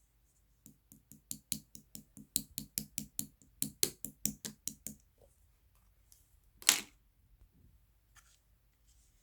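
Transparent jelly being handled: a run of quick taps, about five a second, lasting some four seconds. Then one louder, longer noise about two seconds after the tapping stops.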